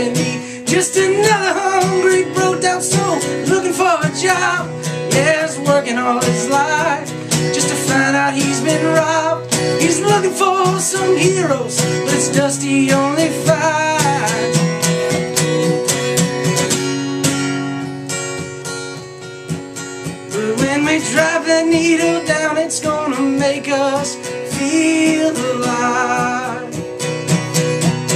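A man singing to his own strummed acoustic guitar. The voice drops out for a few seconds past the middle, leaving the guitar alone, then comes back in.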